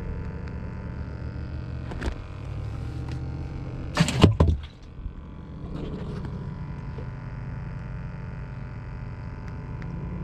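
Handling noise in a small fishing boat: a sharp knock about two seconds in, then a loud clattering thump about four seconds in, over a steady low rumble.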